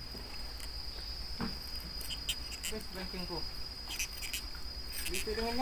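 Steady high-pitched insect drone, one unbroken tone that holds level throughout, with a few faint distant voices in the middle and near the end.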